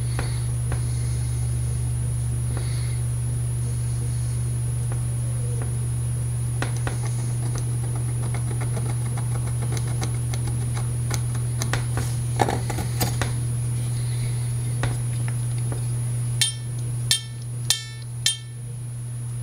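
Small metal tool clicks and taps on a harmonica over a steady low hum, then near the end a harmonica reed plucked four times, a little over half a second apart, each pluck ringing briefly and dying away.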